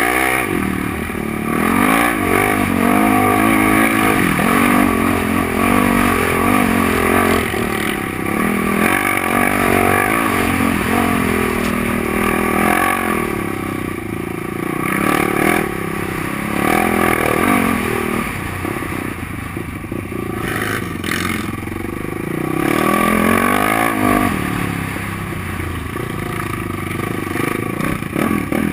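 Yamaha ATV engine revving up and easing off again and again while riding through soft sand.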